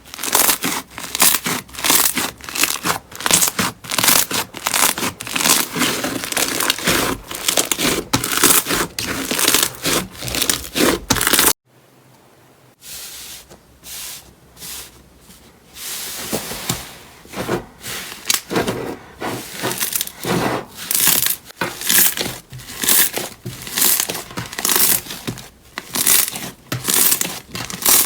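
Slime being squeezed, stretched and poked, giving dense crackling and popping. About eleven seconds in there is a brief near-silent break, then the crackling returns softer and builds up again.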